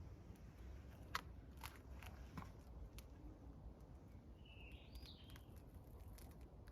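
Faint outdoor quiet with a single short bird call about four and a half seconds in that rises and then falls, and a few soft clicks or steps earlier on.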